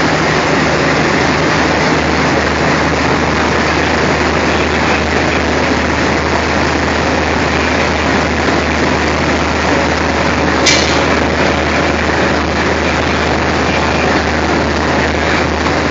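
ALCO diesel locomotive engine idling with a steady low drone, and a single sharp click about ten seconds in.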